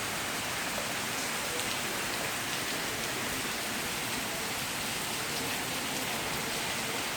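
Heavy rain falling steadily: an even hiss of rain on surfaces.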